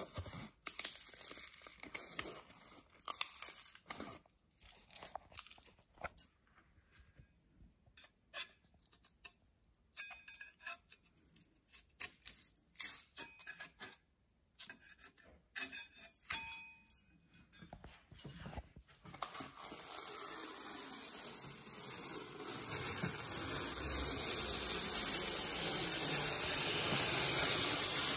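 Wallpaper being peeled off a wall by hand, with short, crackly tears and pauses between them. Later comes one long, continuous tearing pull that grows steadily louder toward the end.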